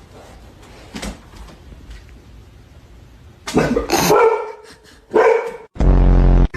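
A dog barking: a quiet start, then three loud barks in the second half, the last one the longest.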